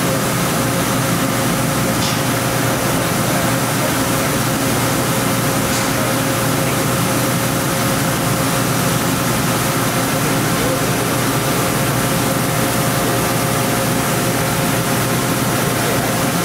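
OKK VP600 five-axis vertical machining center running, its spindle and axes in motion: a steady mechanical hum with a few thin, steady whining tones.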